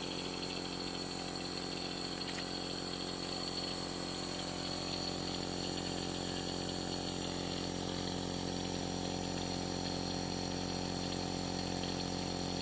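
Compressor nebulizer running with a steady, even hum, turning liquid medicine into mist.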